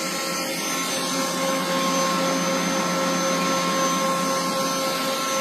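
Electric mixer running steadily with a constant motor whine, whipping egg whites and sugar into a meringue.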